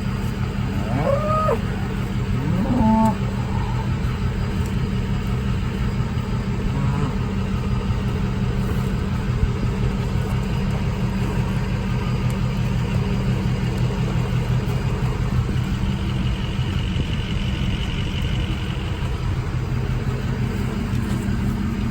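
Truck engine running steadily, with cattle mooing briefly about a second in and again around three seconds in.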